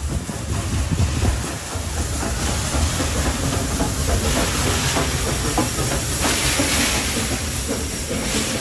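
NSW AD60 class Beyer-Garratt steam locomotive 6029 rolling slowly past: a low rumble under steam hissing from around the cylinders, the hiss swelling to its loudest about six to seven seconds in, with wheels clicking over the rail joints in the middle.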